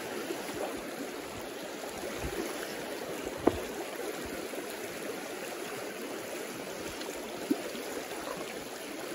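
Shallow river running low over rocks, a steady rush of riffling water. Two short clicks stand out, one about a third of the way in and one near the end.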